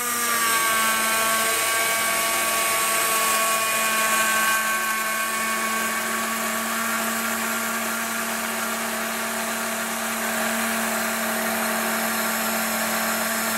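Kenwood immersion (stick) blender running steadily in a tall plastic beaker, emulsifying milk and sunflower oil into mayonnaise. Its whine settles slightly lower in pitch in the first second, then holds steady.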